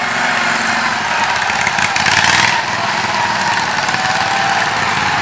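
Several racing lawn tractor engines running as the mowers drive past, with a louder rush of noise about two seconds in.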